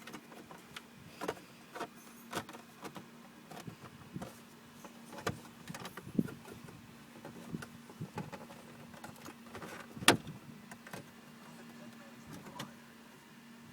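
Plastic center-dash trim panel of a Nissan Altima being pushed and pulled loose by hand: scattered creaks and clicks, with one loud sharp snap about ten seconds in as a retaining clip lets go. A steady low hum runs underneath.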